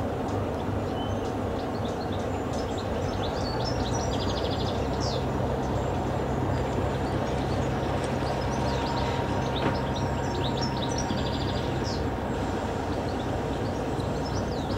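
Class 33 'Crompton' diesel locomotive's Sulzer eight-cylinder engine idling steadily, a low even hum. Birds chirp repeatedly over it.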